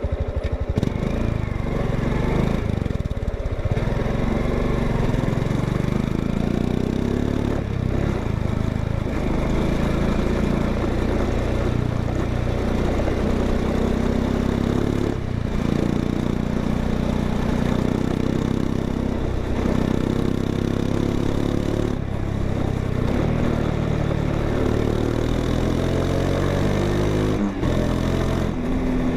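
Honda XRE 190 motorcycle's single-cylinder engine and exhaust running, its engine speed repeatedly rising and falling.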